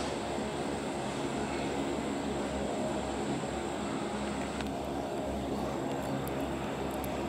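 GE diesel locomotives of a CSX freight train working under power as the train approaches, a steady low engine drone.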